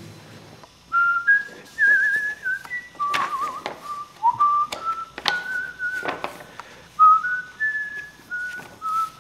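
Someone whistling a tune: a melody of clear held notes that step up and down, with a couple of quick warbles, and a few short knocks in between.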